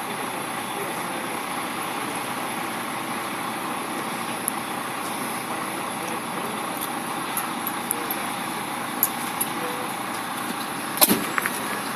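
Steady noise of an idling truck engine, with a few light clicks and one sharp knock about eleven seconds in.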